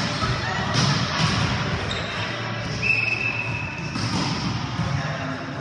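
Volleyball play in a reverberant gym: a ball being struck and thudding, with players' voices and shuffling in the background. A high steady tone sounds about three seconds in and lasts about a second.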